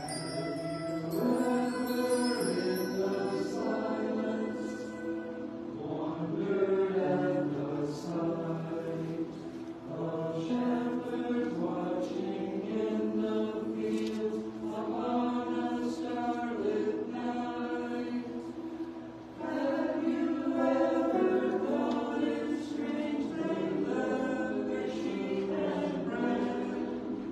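Church choir singing, in phrases with short breaks about 10 and 19 seconds in.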